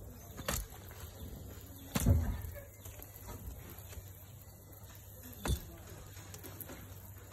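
A digging tool striking into the clay soil of a termite mound: three thuds, about half a second in, two seconds in (the loudest and heaviest) and about five and a half seconds in.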